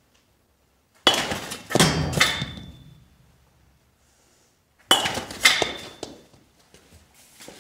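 Two swings of a baseball bat hitting balls off a batting tee, one about a second in and one about five seconds in. Each is a sharp crack followed by quick clattering hits with a brief metallic ring, as the ball strikes the practice net and knocks against the balls gathered at its foot.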